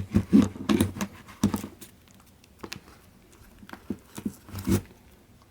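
Light handling noise: a scattering of short clicks and knocks with some rustling, bunched near the start and again about four seconds in.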